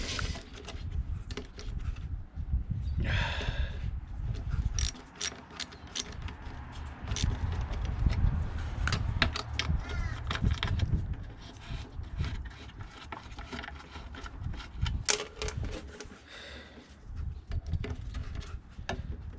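Socket ratchet wrench clicking in irregular runs as bolts are turned on a lawnmower engine, with wind rumbling on the microphone.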